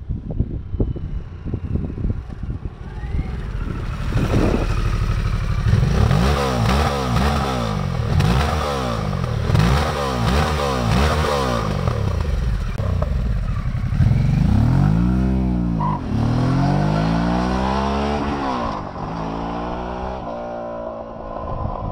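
Harley-Davidson Sportster S's 1250 cc V-twin through a loud exhaust: popping and crackling at first, then revved repeatedly about once a second with exhaust pops as the throttle closes. It then accelerates hard through a couple of gears, the pitch rising and dropping at each shift, and fades away near the end.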